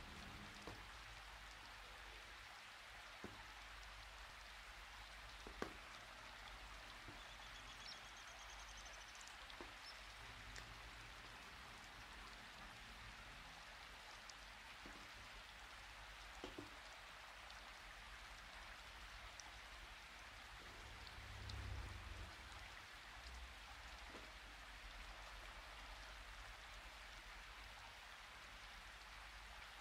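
Faint steady hiss, with a few soft clicks scattered through and a low bump a little past the middle.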